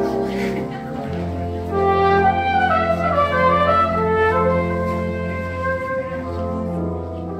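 Brass ensemble with tuba and trombones playing: sustained chords with a melody moving above, and a low tuba note coming in about a second in.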